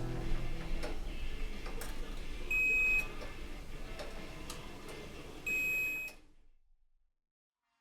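An electronic beeper sounds twice, two steady high beeps about three seconds apart and about half a second each, over a hiss with a few sharp clicks. Then the sound drops out to silence.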